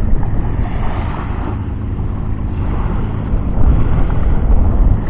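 Wind buffeting the microphone over small waves washing onto a sandy shore, a steady loud rumble without a break.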